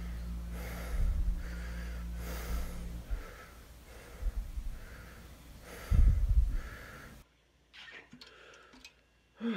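A man breathing heavily through his mouth, short puffing breaths in and out about one and a half times a second, over a low hum. About seven seconds in the sound drops off abruptly to a quiet stretch with a few faint clicks.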